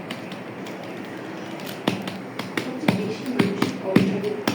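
Light plastic taps and clicks, irregular, from toys being handled and knocked together; sparse at first and more frequent after about two seconds.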